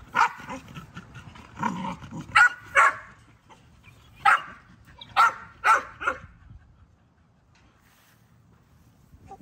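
Dogs barking, about eight short, sharp barks spread over the first six seconds.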